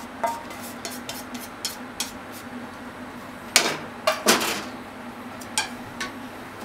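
Cookware knocking and clinking: a metal frying pan and spatula tapping against a ceramic bowl as the stir-fry is tipped out, with a few scattered clicks and a cluster of louder clatters about three and a half to four and a half seconds in, over a steady low hum.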